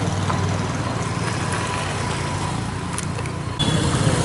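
A motor vehicle's engine running steadily with road noise. The sound jumps louder and changes abruptly about three and a half seconds in.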